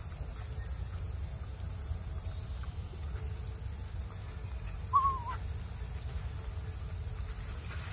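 Steady high-pitched insect drone over a low rumble, broken about five seconds in by one short, wavering high call from a monkey.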